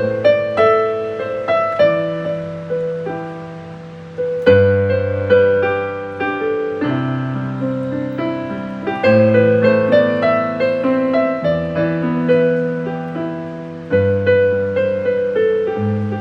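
Casio AP-450BN digital piano playing a slow, gentle piece: a melody over long-held bass notes, with a new phrase and bass note struck about every four to five seconds. It is heard through the instrument's own speakers, picked up by a phone microphone.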